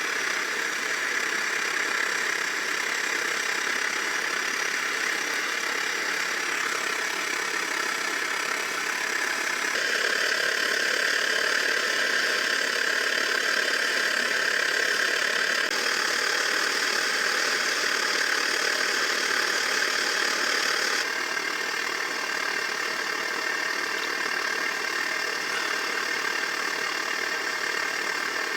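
Pressurised gasoline camp stove (Svea 123R) burner roaring steadily, a hiss with no pulse. Its level steps up and down abruptly a few times.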